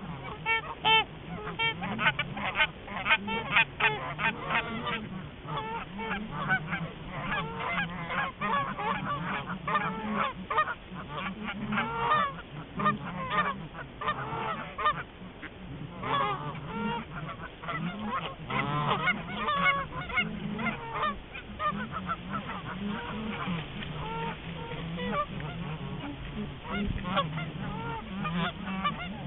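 A flock of geese honking, many overlapping calls at once and without a break, busiest in the first few seconds and again around the middle.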